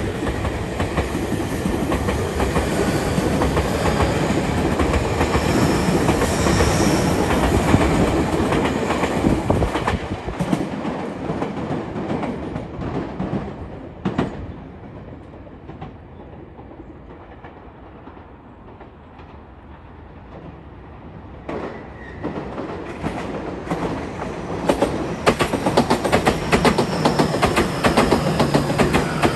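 Two Tobu Railway electric commuter trains. The first runs out past the platform, its wheels clacking over the rail joints as the sound fades away. After a quieter stretch the second comes in alongside the platform, its wheel clacks growing louder and coming in quick succession near the end.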